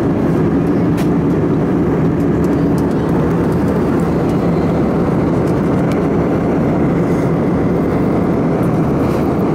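Steady drone of an airplane in flight, heard from inside the cabin: a constant roar with a low, even hum.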